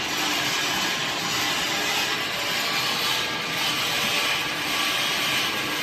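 Industrial machinery of a pet food production line running steadily: a dense, even hiss with a faint low hum underneath.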